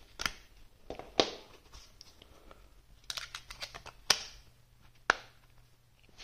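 Handling an IQOS Iluma Prime while wrapping a magnetic fabric cover around it. A few sharp clicks are heard as the cover's magnets snap against the device, the loudest about a second in, with more near the middle and end, and light rustling of the cloth between them.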